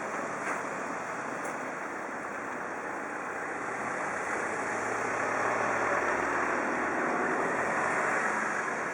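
Hankyu Senri Line train running along the track, a steady rumble of wheels on rail that grows louder over the second half.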